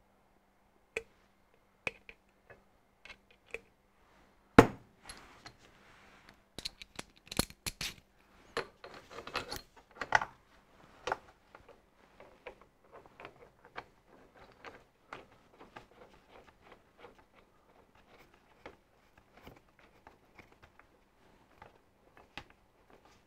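Small steel bolts and washers clinking and scraping against the dividing head's housing as they are fitted by hand, with one sharp knock about four and a half seconds in and a busy run of clinks just after. Small scattered ticks follow.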